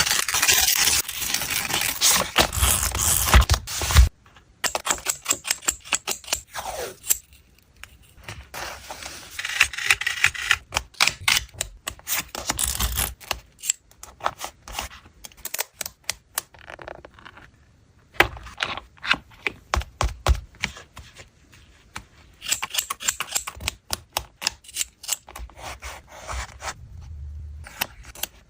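Close-up paper and stationery handling for journal collage: crinkling and rustling paper for the first few seconds, then many small clicks, taps and short scrapes.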